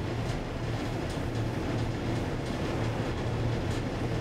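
1977 KONE inclined elevator cab travelling down its sloped shaft: a steady low hum with a few faint clicks.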